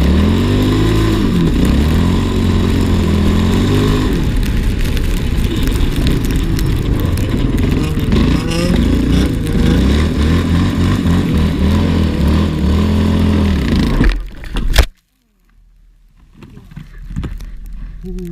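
ATV engine running hard, its pitch rising and falling as the throttle is worked, for about fourteen seconds. A sharp loud crack follows, and the engine sound cuts off abruptly.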